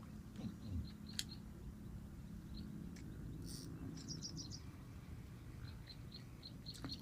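Small birds chirping: short high chirps scattered throughout, with a quick run of about five notes around four seconds in, over a low steady background rumble.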